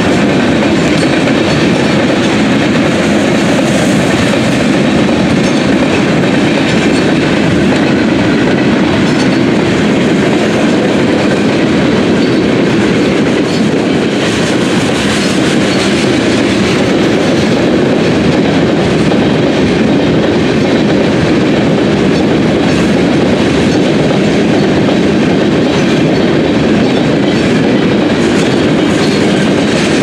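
Covered hopper cars of a freight train rolling past close by: a steady, loud rumble of steel wheels on rail, with repeated clicks as the wheels cross rail joints.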